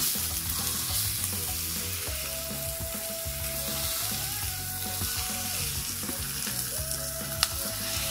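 Chopped beef sizzling in hot oil with pounded chilies and garlic, stirred and broken up with a wooden spatula. A single sharp tap about seven seconds in.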